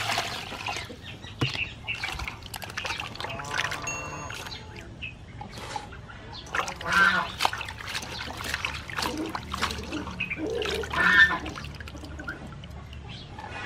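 Water splashing and sloshing in a steel bowl as lettuce leaves, green peppercorn clusters and tomatoes are poured in and rinsed by hand, with a few short calls in the background.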